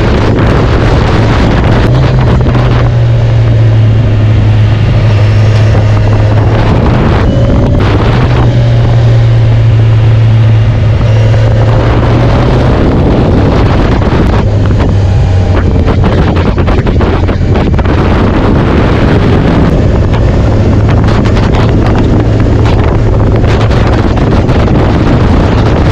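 A vehicle's engine running at a steady drone while travelling, under loud wind buffeting on the microphone; the drone weakens about halfway through.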